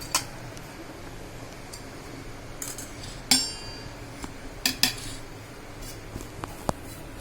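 Kitchen utensils clinking and knocking, a spoon against a bowl, as ingredients are tipped in: a few separate sharp clinks. The loudest, about three seconds in, rings briefly.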